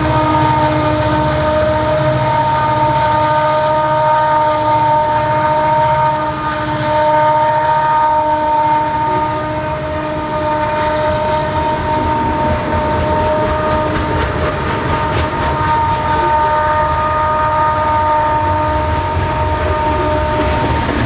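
EMD SD60 diesel-electric locomotives, turbocharged 16-cylinder engines, working hard upgrade: a steady, unbroken turbocharger howl over the low throb of the engines.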